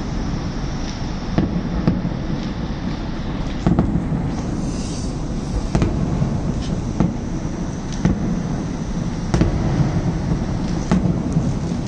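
Fireworks exploding over a city: a continuous low rumble of bursts, with sharp bangs at irregular intervals of a second or two.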